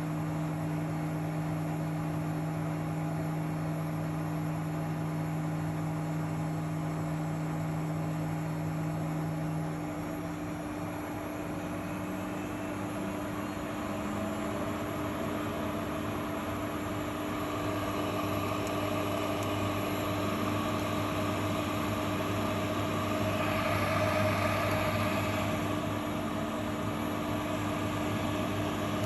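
Miele Professional washing machine on its spin cycle: a steady motor hum and drum whir. About ten seconds in, one tone drops away and others shift and rise, and the sound gets a little louder later on as the spin speed changes.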